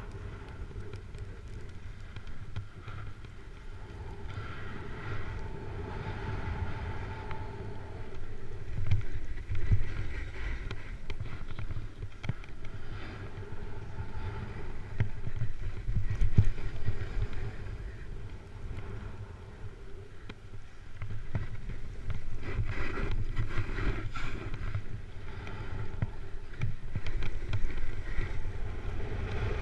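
Snowboard sliding and carving down a snow slope: the board scraping and hissing over the snow in swells that rise and fall with each turn, with wind rumbling on a GoPro's microphone.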